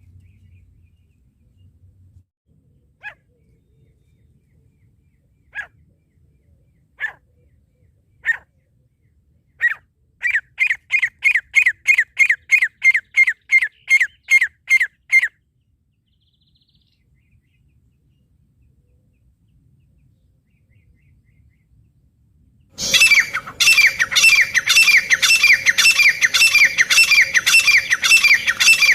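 Francolin (teetar) calling. A few single sharp notes a second or two apart speed up into a rapid run of repeated call notes, about three a second, which stops after about five seconds. Several seconds later a much louder run of repeated calls starts abruptly over a steady low hum.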